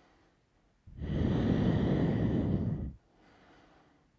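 A man's single long, audible breath through the mouth, lasting about two seconds and starting about a second in. It is effort breathing timed to repeated chest lifts in a prone back-strengthening exercise.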